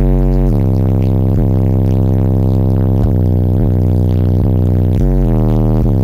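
Bass-heavy electronic music played very loud through four Resilient Sounds Platinum 15-inch subwoofers on Bass 8k amplifiers, heard inside the car. Deep, sustained bass notes shift pitch every second or so at a constant high level.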